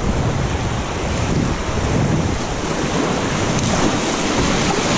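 Fast river current rushing around a kayak running a rapid: a steady, loud wash of water, with a low rumble of wind on the microphone.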